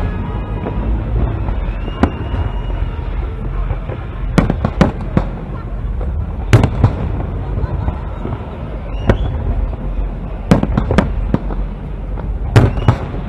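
Aerial fireworks shells bursting: sharp bangs at irregular intervals, several coming in quick clusters of two or three, over a steady low rumble.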